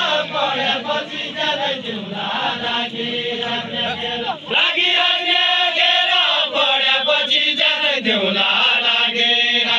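Voices singing a Deuda song in a chant-like melody, with long held notes that waver and glide.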